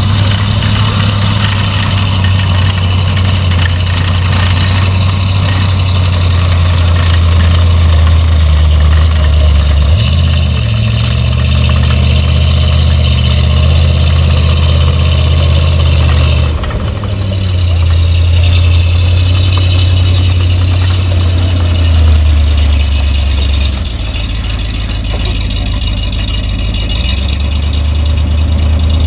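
M114 armoured carrier's Chevrolet V8 engine running loud and steady, its note stepping up and down a few times, with a brief dip in level a little past halfway.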